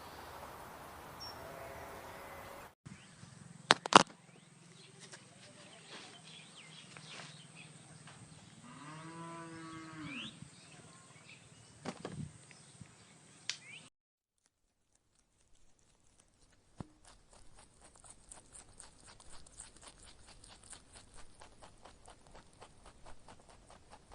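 An animal's single drawn-out call, rising then falling in pitch, about nine seconds in, over a low steady hum. A sharp knock a few seconds in is the loudest sound, and a fast run of light ticks or pattering fills the last third.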